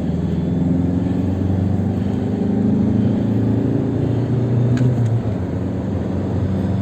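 Volkswagen Passat B6 diesel engine accelerating hard in third gear, its pitch climbing for about five seconds, then falling away. It pulls at full power with the ECU's DPF restriction (limp mode) lifted.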